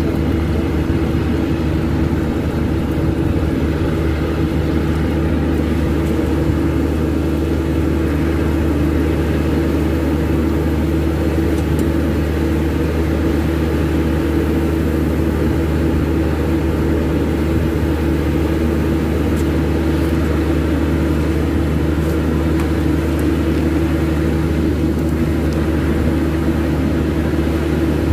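Steady, loud drone of running airport ramp machinery: a constant hum with a few low pitched tones that holds unchanged throughout.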